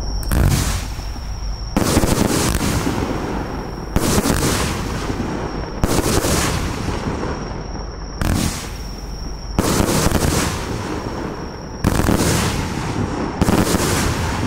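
30 mm fireworks compound cake firing shells in salvos, about eight sharp bangs roughly every two seconds, each followed by a fading crackle and hiss as the stars burn out.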